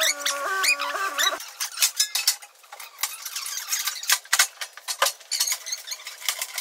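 A squeal that steps up and down in pitch and stops about a second and a half in, then irregular metal clinks and rattles, from the car being unloaded off a car-transporter trailer.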